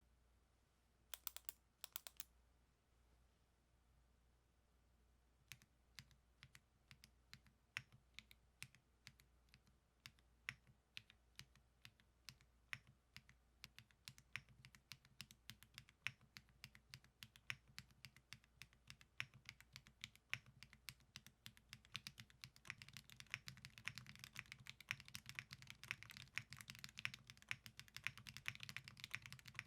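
Typing on a Zoom75 mechanical keyboard with WS Red linear switches, a polycarbonate plate and PBT keycaps. A few keystrokes about a second in, a short pause, then steady typing from about five seconds in that speeds up into fast, continuous typing over the last third.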